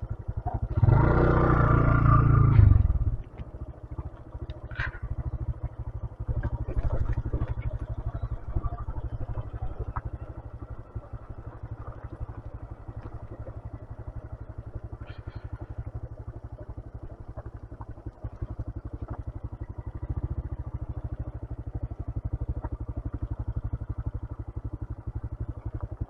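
125cc motorcycle engine running as the bike rides, a steady low rumble of rapid firing pulses, with a louder burst lasting about two seconds near the start.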